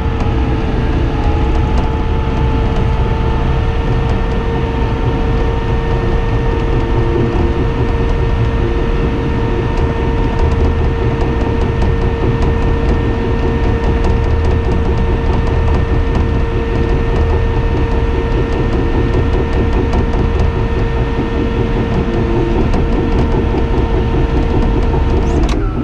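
Cat D5N XL crawler dozer heard from its cab, the diesel engine running under load with a steady whine. The steel tracks clatter as the blade pushes dirt.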